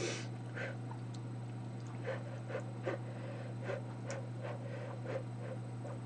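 Quiet eating sounds: soft chewing of grainy porridge and a metal spoon scraping a ceramic bowl, heard as short faint clicks every half second or so over a steady low hum.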